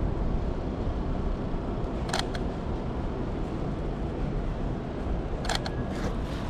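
Canon 90D DSLR shutter firing twice, about two seconds in and again near the end, each release a quick double click, over a steady low rumble of street traffic and wind.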